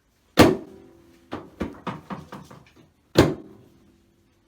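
Thuds from a chiropractic adjustment on a patient lying face down: a loud thud with a short ringing tail, a quick run of five lighter knocks, then a second loud thud about three seconds after the first.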